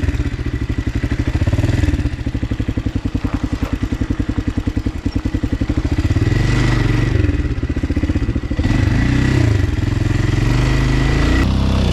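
Motocross motorcycle engine running hard under load on a climb, revving up and down with a rapid, even beat throughout.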